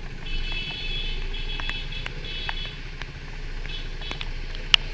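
A vehicle horn honking in three short blasts and a briefer fourth, over a steady low rumble; a sharp click sounds near the end.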